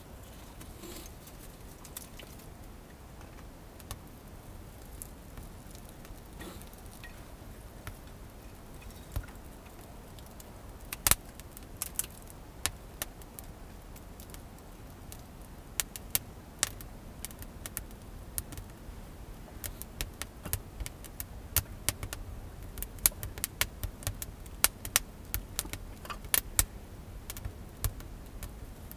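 Small wood fire in a stove crackling, with sharp irregular pops and snaps that come thick and fast from about halfway as freshly fed kindling catches.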